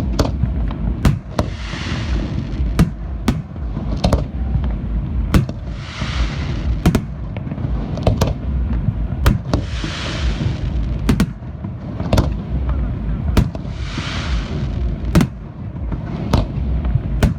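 Fireworks display: a rapid run of sharp bangs, about one a second, over a continuous low rumble. A rushing hiss lasting about a second comes in every four seconds or so.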